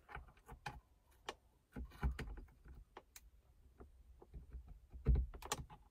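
Faint, irregular small clicks and ticks as fingers handle small LED bulbs and push them into the plastic sockets of a car's overhead light housing, with a couple of soft bumps about two seconds in and near the end.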